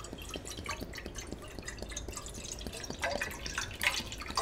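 Liquid poured from a plastic bottle into a pan of water, splashing in a quick patter of small drips and splashes that grows louder over the last second or so.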